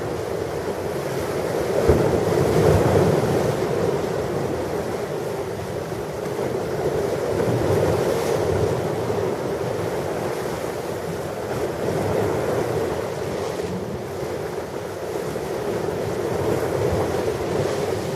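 Ocean surf breaking on a beach, the noise of the waves swelling and easing every few seconds, with wind buffeting the microphone.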